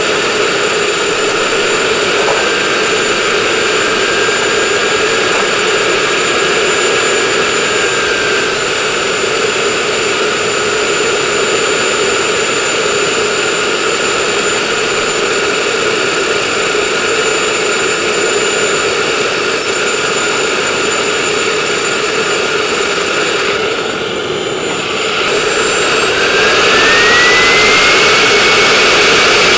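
Twin small model jet turbines of an RC A-10 running at idle with a steady high-pitched whine and rushing hiss. Near the end the sound dips briefly, then both engines throttle up: the whine glides up in pitch and the sound gets louder.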